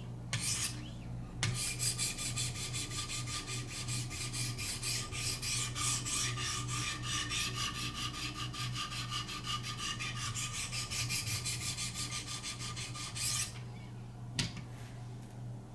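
400-grit Wicked Edge sharpening stones rasping along a knife edge in rapid back-and-forth strokes, several a second, after a brief stroke at the start; the stroking stops near the end and a single click follows.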